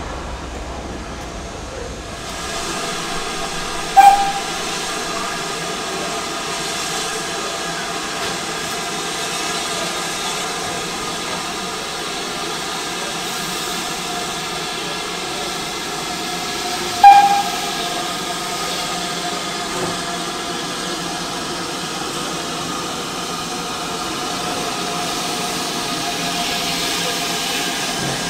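BR Standard Class 5MT steam locomotive 73156 hissing steam steadily as it moves slowly alongside. About four seconds in, and again about seventeen seconds in, comes a sudden loud sharp sound with a short ringing tone.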